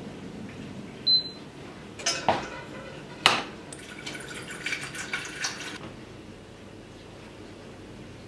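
A short beep from a glass-top hob's touch control about a second in, then a stainless steel saucepan clattering and clanking down on the hob, followed by about two seconds of liquid pouring into the pan.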